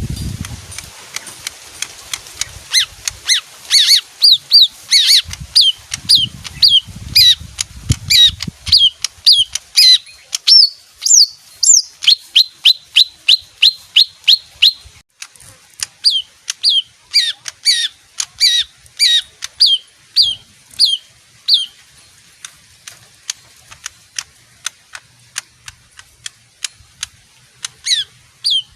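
Leafbird calling: a long series of sharp, down-slurred notes, about two a second, which speed up into a fast run around the middle and then thin out to scattered notes near the end. A low rustle comes near the start and again a few seconds in.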